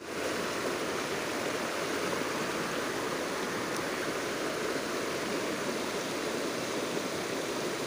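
Shallow rocky river rushing over stones in small rapids: a steady rush of running water.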